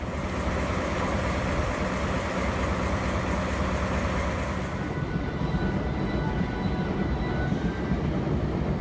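DE10 diesel locomotive passing with a train of unpowered cars in tow: its engine runs steadily under the rolling noise of the wheels on the rails. Faint high ringing tones join about halfway through.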